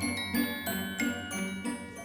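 Background music: a light tune of struck, ringing mallet notes, about three a second.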